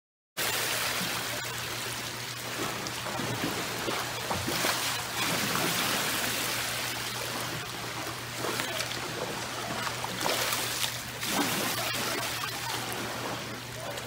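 Swimming pool water sloshing and splashing against the pool edge, set in waves by earthquake shaking, over a steady low hum. It starts suddenly about half a second in.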